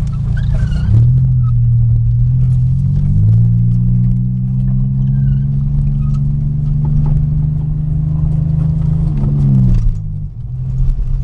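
Pontiac Grand Prix's engine pulling hard while driving over a rough dirt track, heard from inside the cabin, with scattered knocks and rattles. The engine note climbs, holds steady, then drops off about nine seconds in.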